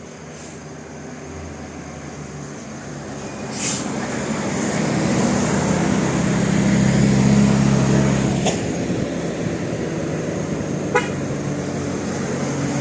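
A bus passing close by, its sound swelling to a peak about seven seconds in and then easing off, with a low horn held for a few seconds around the loudest part. A few sharp clicks stand out over it.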